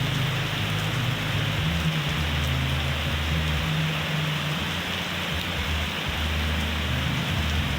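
Steady rain falling and pattering on surfaces, an even hiss with a low rumble underneath.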